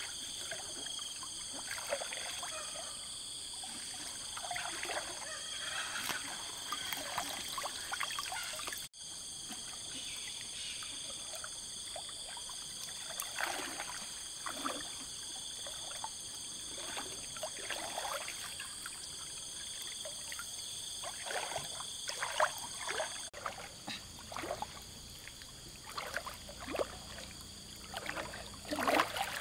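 Lake water splashing and sloshing in irregular bursts while fishing with a triangular push net, over a steady high-pitched whine.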